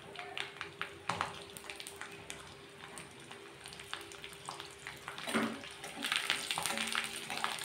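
Garlic, a dried red chilli and radhuni seeds sizzling and crackling in hot mustard oil in a metal wok, with scattered small pops. From about five seconds in, a metal spatula stirs and scrapes across the pan, louder.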